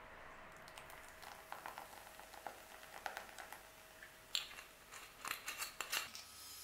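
Baking soda fizzing on cake batter as apple cider vinegar is poured onto it: faint crackling and popping as it foams, for leavening. A few sharper clicks come in the second half.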